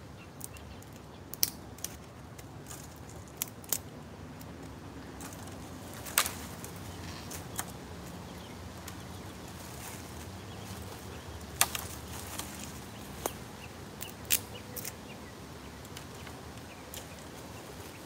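Dry twigs and leaf litter snapping and crackling now and then as a person moves about and handles dead wood on the forest floor. A faint steady outdoor background runs underneath.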